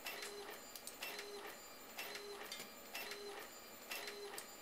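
Epson Stylus 740 inkjet printer printing: the print head makes a short pass with clicks and a brief hum about once a second.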